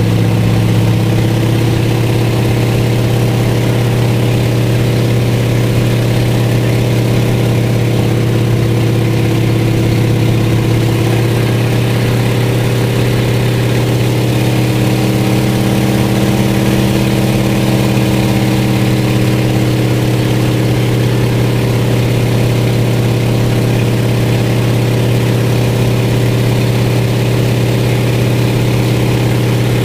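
Float plane's piston engine and propeller, heard from inside the cabin, running with a steady drone; its note shifts slightly about halfway through.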